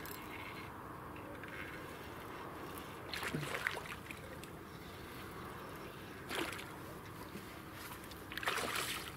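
A hooked pike splashing at the surface of the water as it is played on a fishing line: three short splashes, about three seconds in, about six seconds in, and near the end.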